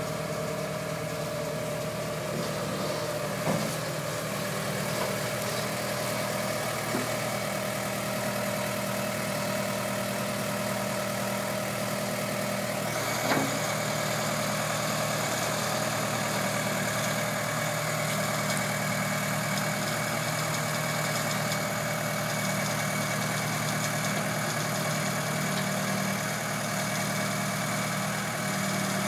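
Skid-steer loader's engine idling steadily, with a few short knocks.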